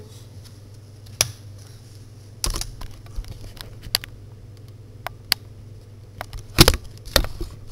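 Plastic DIY Rubik's-type cube being turned quickly during a speed solve: scattered clicks and short bursts of clacking as the layers snap round, the cube freshly tightened and lubricated.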